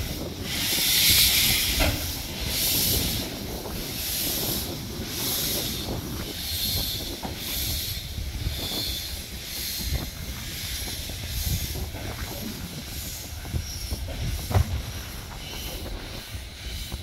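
Vale of Rheidol narrow-gauge steam locomotive No. 7, a 2-6-2 tank engine, pulling away slowly. Its steam hisses in even rhythmic puffs, about one every three-quarters of a second, over a low rumble with a few clicks from the wheels on the track. The puffs fade as it moves off.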